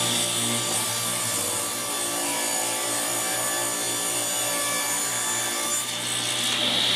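Table saw ripping a board lengthwise, the blade cutting steadily through the wood over a constant motor hum.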